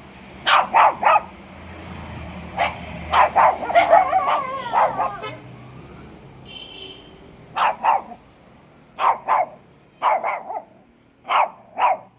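Dog barking in short, sharp barks, mostly in pairs and threes, with a quicker run of barks about four seconds in.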